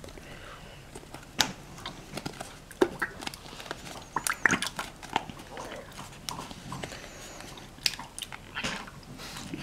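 Small cardboard carton of liquid cream crinkling and clicking in the hands as the cream is squeezed out into a stainless-steel bowl: a scatter of short, sharp crackles and clicks.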